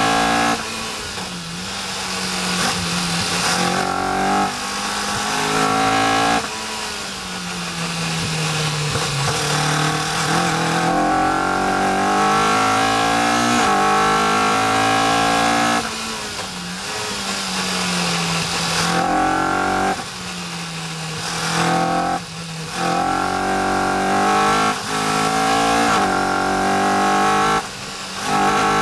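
Caterham R400's engine heard from the open cockpit on track: it pulls hard with pitch climbing, then lifts off with pitch falling into corners, several times over, with brief sharp breaks in the sound at gear changes.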